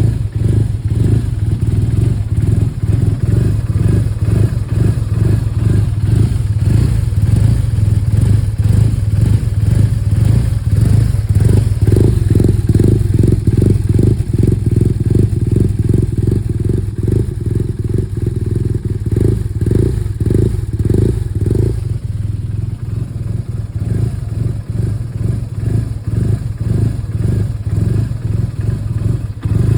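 2011 BMW R1200R's boxer twin idling roughly, its firing pulses coming unevenly: the sound of the rough idle and misfires the bike is being recorded for. The pulsing thins and the engine gets a little quieter about two-thirds of the way through.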